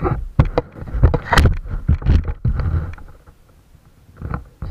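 Irregular thuds and knocks with rustling close to the microphone as a basketball is handled and moved around, several sharp hits in the first three seconds, then quieter.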